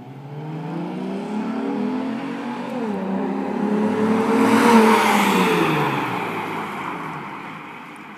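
V6 Camaro with an MRT 2.0 axle-back exhaust and Roto-fab cold air intake accelerating hard past, climbing in pitch, shifting up about three seconds in, then pulling again. It is loudest about five seconds in and then drops in pitch and fades as it drives away.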